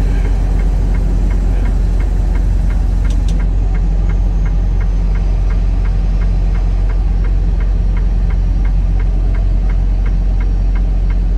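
Semi-truck running with a steady low rumble, with a light, regular ticking about three times a second.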